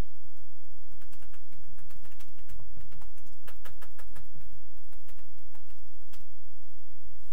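Dry-erase marker on a whiteboard: a run of small taps and clicks as short strokes are drawn, densest in the middle, with a couple of dull knocks against the board.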